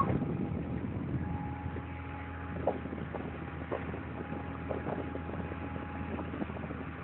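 Motorboat engine running steadily, with a low hum and a thin steady whine and a few faint knocks.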